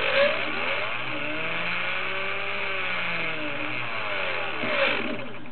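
Align 500L brushless electric motor spinning up and back down, its whine rising in pitch and then falling, with louder, rougher noise at low speed about a quarter second in and again near the end. The strange noise at low rpm, until the motor spins up properly, is the fault in question, which the owner cannot pin on either the motor or the speed controller (ESC).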